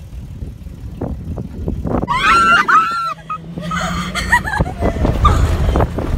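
Low rumble of a four-wheel-drive SUV driving over sand dunes, then from about two seconds in, passengers inside the cabin screaming and shrieking in loud bursts over the engine and ride noise.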